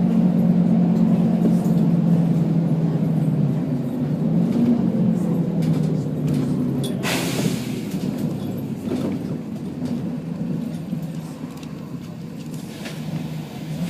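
Volvo B10BLE bus engine running with a steady drone that fades gradually as the bus eases off. About seven seconds in comes a sharp hiss of compressed air from the bus's air system lasting about a second, and a fainter hiss follows near the end.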